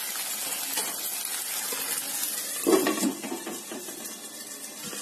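Onion-tomato masala sizzling in oil in a metal kadhai, a steady hiss, with a brief knock a little under three seconds in, after which the sizzle is quieter.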